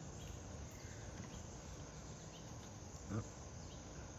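Backyard insect chorus of crickets chirping steadily, with a few faint higher chirps and one brief voice-like sound about three seconds in.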